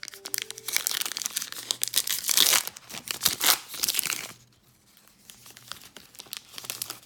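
Crinkly plastic baseball card pack wrapper being crumpled and torn open, a dense crackling for about four seconds, loudest in the middle, then thinning to a few fainter rustles.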